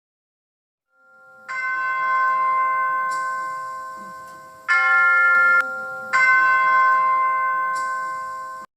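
Bell chimes: a ringing bell tone about a second and a half in that slowly dies away, then two more strikes, the second cut short, before the sound stops abruptly near the end.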